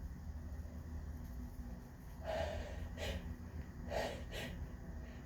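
A woman's breath catching in sharp gasps and snorts, four short breaths in two pairs, the build-up to another sneeze in a hay-fever sneezing fit.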